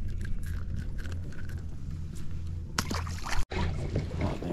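Hands working a hooked fish free at the boat's side: small clicks and handling noise over a steady low hum. About three seconds in, a loud rustle of clothing rubbing on the chest-worn microphone, cut off abruptly.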